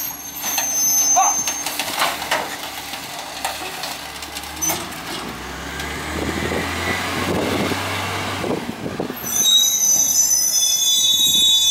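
Peterbilt 348 CNG rear-loader garbage truck pulling away, its engine rising, after a few knocks in the first seconds. Its brakes squeal with high tones for about two seconds as it slows near the end.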